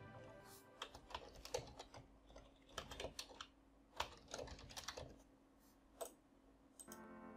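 Computer keyboard typing: faint, irregular key clicks as a word is typed.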